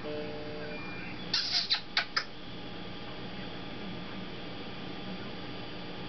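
African grey parrot giving a quick run of about five short, sharp, high chirps, about a second and a half in.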